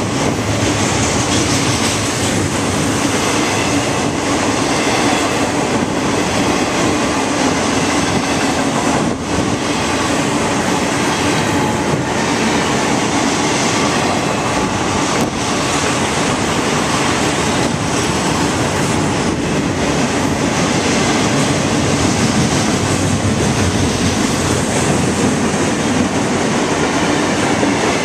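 Freight train cars rolling past close by: a loud, steady rumble and rattle of steel wheels on rail.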